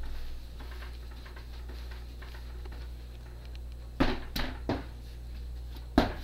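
Bread dough being divided and rounded by hand on a stainless steel worktop: faint rustling, then three quick knocks about four seconds in and another near the end as dough and hands strike the steel. A steady low hum runs underneath.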